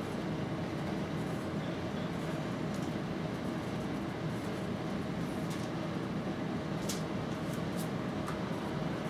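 Steady hum and hiss of a room's air-conditioning unit, with a few faint clicks from papers and books being handled on a desk in the second half.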